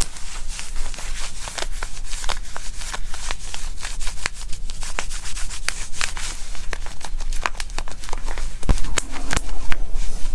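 Stomach growling and gurgling: a long stretch of dense crackling, rubbing noise over a steady low rumble.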